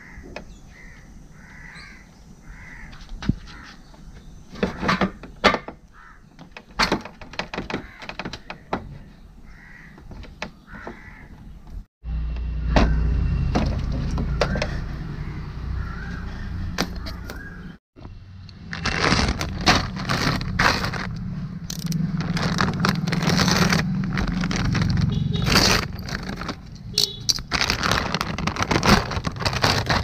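Scattered light clicks and taps of a motorcycle clutch cable being worked free at the handlebar lever. After a cut comes a low rumble, and then a steady crinkling and rustling of the new cable's plastic packet being handled.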